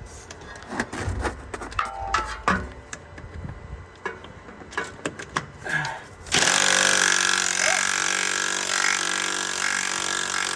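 Metal tools clinking and knocking while a large socket is fitted. About six seconds in, an impact wrench starts suddenly and runs steadily on a driveshaft fastener, breaking it loose.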